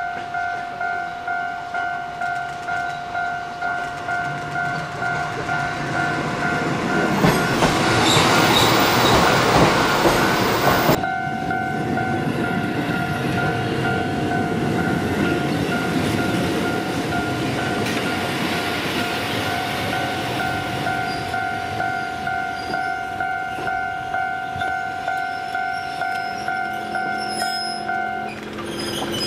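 Japanese railway level-crossing warning bell ringing in a steady, even pulse, about two strokes a second. A train passes about seven seconds in, the loudest part, with rail noise. The bell stops shortly before the end.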